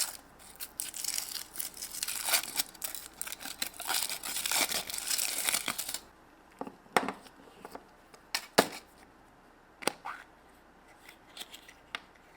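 Foil wrapper of a chocolate surprise egg crinkling and tearing as it is unwrapped, continuous for about six seconds. Then a few separate sharp clicks and snaps.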